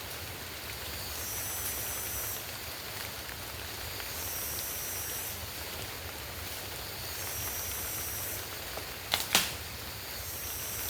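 Steady rush of water, river flow or rain, with a high-pitched trill recurring for about a second every three seconds, and two sharp knocks close together near the end.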